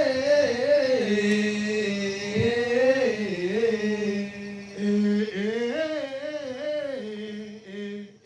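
Singing: a melody with long held notes that waver and glide between pitches.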